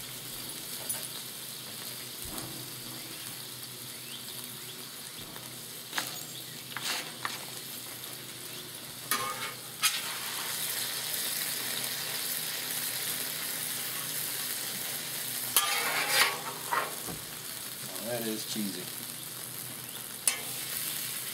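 Chicken and melted cheese sizzling on a hot steel flat-top griddle, a steady hiss. A metal spatula scrapes and clicks against the cooktop in a few short strokes, loudest about two-thirds of the way through.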